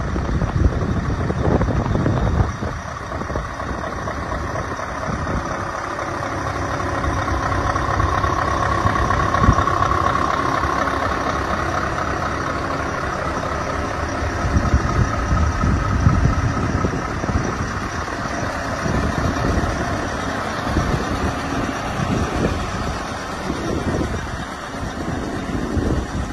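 Scania truck engine running with a deep, steady rumble. A higher whine swells and fades about a third of the way through.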